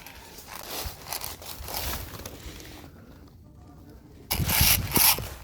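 Rustling and scraping of clothing and gear moving against the microphone, with louder brushing bursts in the last second or so.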